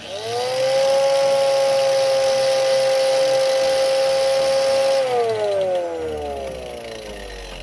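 Angle grinder driving a homemade chain rock crusher, switched on with a click and spinning up within half a second to a steady high whine, running empty. About five seconds in it is switched off and winds down, its pitch falling steadily.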